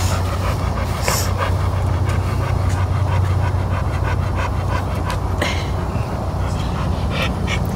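A dog panting steadily with its mouth open, breath after breath, over a continuous low hum.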